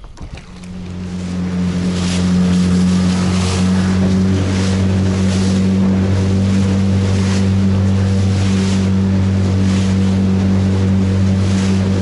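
Small boat's outboard motor throttling up over the first couple of seconds, then running steadily under way, with splashes about once a second as the hull hits choppy waves.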